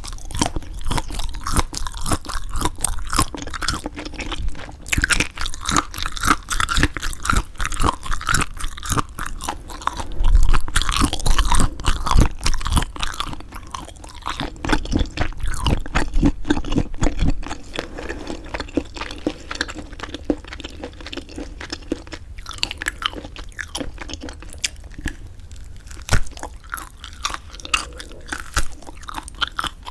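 Close-miked chewing of semi-dried squid: wet, crackly bites and chewing, loudest about a third of the way in and softer in the second half.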